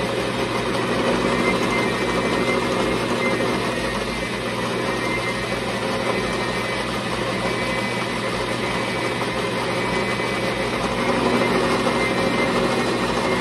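Metal lathe running steadily with an even motor-and-gear hum, its tool rough-turning an aluminum workpiece held in a collet.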